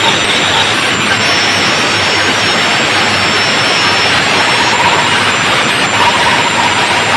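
Very loud DJ sound-system speaker wall playing music so loud that it overloads the recording into a steady, distorted roar with no clear beat.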